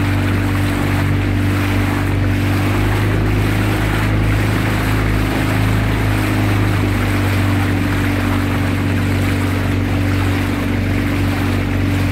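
Motorboat engine running steadily, with water rushing past the hull.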